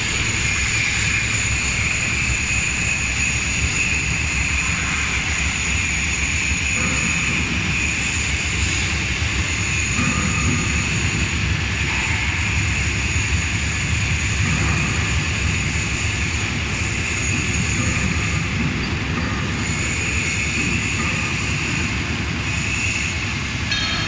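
Diesel-driven shaking table running steadily, a continuous mechanical drone with water washing across the riffled deck.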